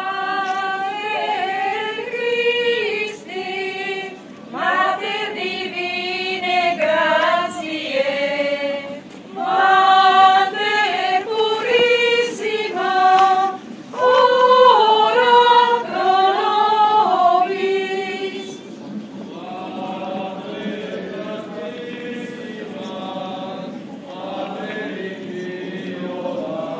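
Parishioners, mostly women's voices, singing a hymn together as they walk in a religious procession. The singing grows fainter about two-thirds of the way through.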